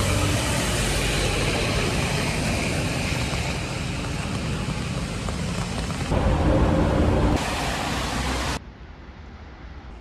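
Steady street traffic noise, loud and hissy, with sudden jumps in level. It drops abruptly to a much quieter hiss about eight and a half seconds in.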